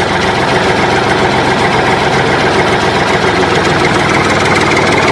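A loud, steady engine sound, as of a vehicle idling, running unbroken without change.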